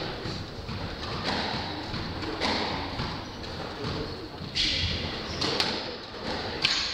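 Squash rally: the ball struck by rackets and smacking off the court walls, a string of sharp knocks and thuds about a second apart, ringing in the enclosed court.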